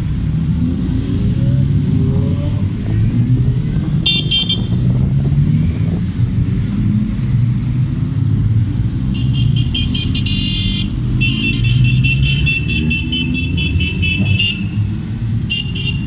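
Many motorcycles ride past at low speed, their engines running together. Horns honk over them: a short toot about four seconds in, longer blasts from about nine to fourteen seconds, and another toot near the end.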